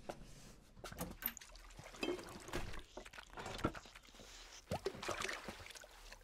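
Water splashing and dribbling, mixed with a series of small knocks and clicks.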